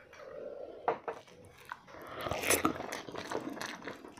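A person biting and chewing food, with irregular small wet clicks and crunches; the busiest stretch comes a little past halfway.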